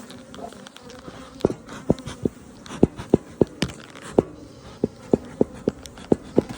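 Honeybees buzzing around an opened hive in a steady hum, the colony riled by the inspection, with about fifteen sharp ticks scattered irregularly through it.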